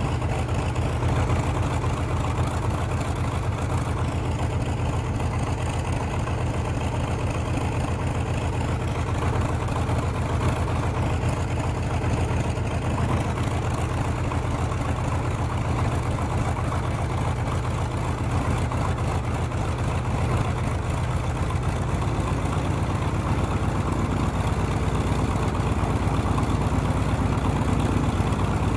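Douglas AD Skyraider's Wright R-3350 eighteen-cylinder radial engine idling steadily with the propeller turning, growing slightly louder over the last few seconds.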